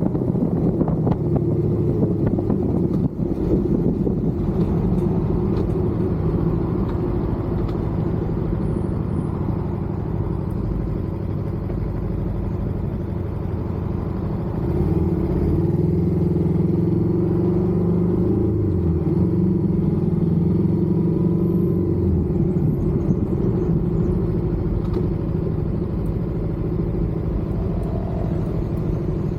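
Suzuki Inazuma motorcycle with its stock exhaust, engine running steadily while riding, with road and wind noise. About halfway through, the engine note gets louder and fuller as the bike pulls harder, then eases back a little.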